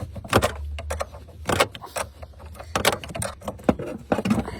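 Sharp metallic clicks and clinks of a hand tool on a car battery terminal as the battery is disconnected: several separate knocks about a second apart.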